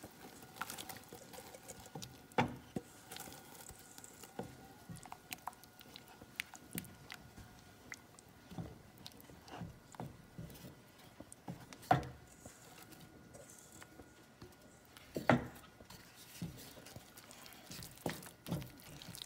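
A wooden spatula stirring garri into hot tomato broth in a pot, as the mixture thickens into pinon: soft wet scraping and squishing with many small ticks, and three louder knocks of the spatula against the pot.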